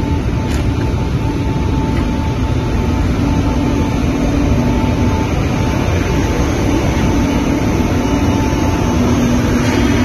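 Loud, steady machine noise of a running mesh veneer dryer, its hot-air circulation fans blowing, with faint tones that come and go.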